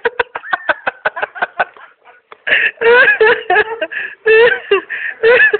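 People laughing: a quick run of short giggles, breaking into louder laughter about halfway through.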